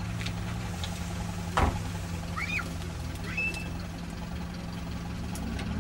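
Off-road 4x4's engine running steadily at low revs, with one loud sharp knock about a second and a half in, then two short high-pitched chirps.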